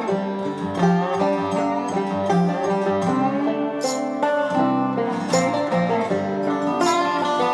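Background music on plucked string instruments, a run of changing notes at an even loudness.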